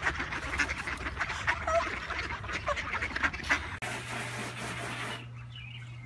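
Mallard ducks quacking, many overlapping calls from a crowding flock. About four seconds in this gives way to a soft wash of water, then faint high peeps from ducklings.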